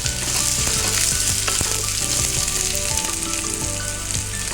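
Finely chopped onion sizzling in hot coconut oil in a pan, with a spatula stirring and knocking against the pan now and then.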